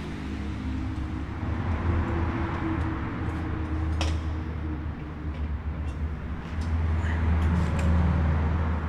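Yamaha Ténéré 700's parallel-twin engine idling through a newly fitted Camel ADV high-mount exhaust, a low steady rumble that swells about two seconds in and again near the end. A single sharp click about four seconds in.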